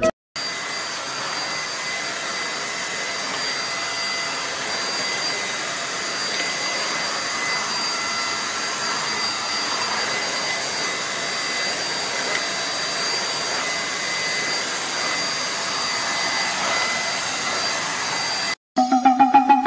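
Stick vacuum cleaner running steadily, a rush of air with a steady high whine over it, cutting off suddenly near the end.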